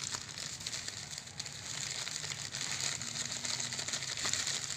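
Salt pouring from a plastic packet into a plastic bowl as a steady high hiss, with the packet crinkling as it is squeezed.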